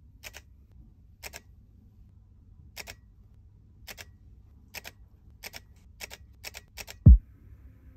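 Sharp clicks from a hand-held Fujifilm X-H2 camera as its settings are worked, about ten of them, spaced out at first and coming faster toward the end. Just before the end comes a loud deep thump that drops in pitch.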